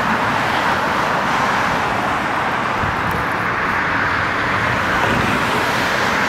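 Steady road-traffic noise, an even roar with no distinct events standing out.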